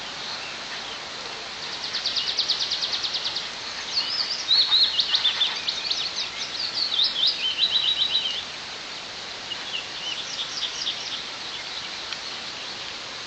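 Small songbirds singing: a fast trill of rapidly repeated high notes about two seconds in, then a louder run of warbled, stepping phrases, and a fainter phrase later on. Under it all is a steady hiss of light rain.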